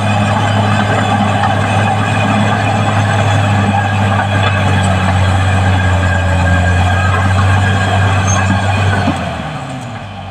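Diesel engine of a Caterpillar D6R XL bulldozer running steadily, easing off and dropping in level near the end.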